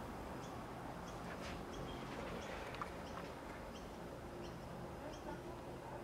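Quiet room tone with a steady low hum, faint short high chirps repeating about once a second, and a light click about three seconds in.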